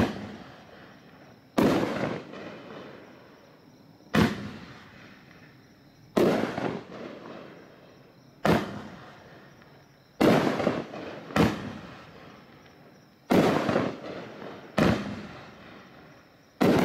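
A 9-shot, 500-gram consumer fireworks cake firing its aerial shots: a string of about nine sharp bangs, one every one to two seconds, each dying away over a second or so.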